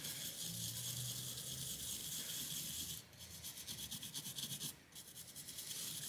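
Toothbrush bristles scrubbing isopropyl alcohol over the bare GTX 1050 graphics chip die to clear old thermal paste: a fine, fast, scratchy rasp of back-and-forth strokes. It breaks off briefly about three seconds in and again near five seconds.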